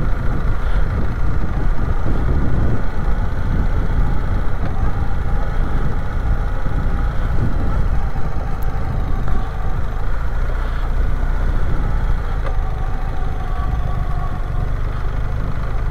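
BMW R 1300GS motorcycle's boxer-twin engine running steadily under way.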